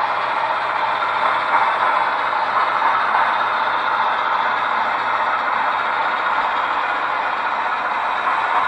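Sound-equipped model diesel locomotive running past at a steady speed, its MS sound decoder playing a diesel running sound with a steady mechanical clatter.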